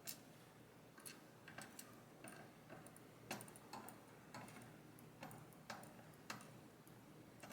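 Faint, irregular small clicks and taps, one or two a second, from handling a disassembled pin-tumbler lock and its small parts.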